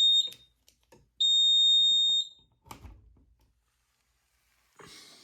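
High-pitched piezo beeps from a home fire alarm system: one beep cuts off just after the start and a second steady beep about a second long follows about a second in. A knock and a short rustle come after.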